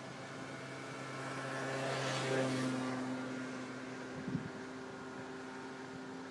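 Boat engine running with a steady low hum. A rushing noise swells and fades about two and a half seconds in, and a short knock comes about four seconds in.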